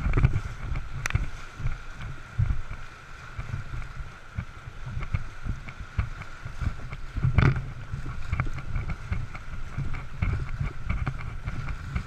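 Open canoe running whitewater rapids: rushing water with irregular splashes and low thumps of waves against the hull, the loudest about seven seconds in.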